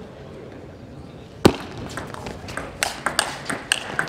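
Table tennis ball being served and rallied. It is quiet at first, then a sharp loud click of the ball about a second and a half in, followed by a quick run of clicks, several a second, as the ball is struck by the bats and bounces on the table.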